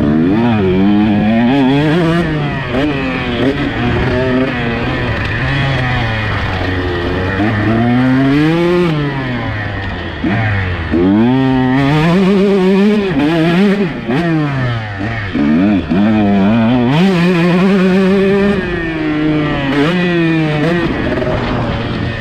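Two-stroke motocross bike engine revving hard and dropping back again and again while being ridden around a dirt track. Its pitch climbs and falls every second or two as the rider opens and shuts the throttle.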